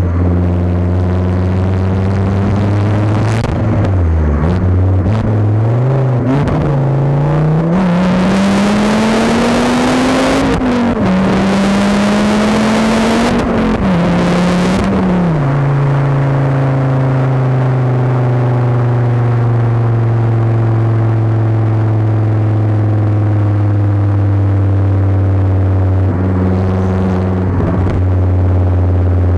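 Volvo S60R's turbocharged five-cylinder engine through a 3-inch straight-pipe exhaust, heard right at the tailpipe while driving: the revs climb for several seconds under acceleration with a rushing noise over it, drop abruptly twice at gear changes, then settle into a steady low drone at cruise.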